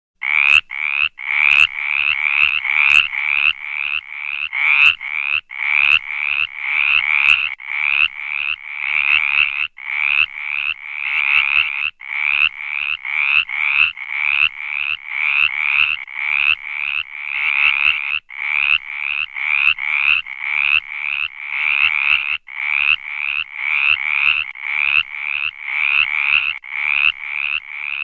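Tree frog calling: short croaks repeated about two a second, in runs of a few seconds broken by brief pauses.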